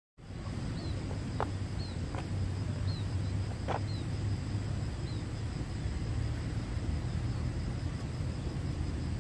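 Outdoor nature ambience: a steady low rumble under a steady high insect drone, with short, high, falling chirps about once a second over the first five seconds.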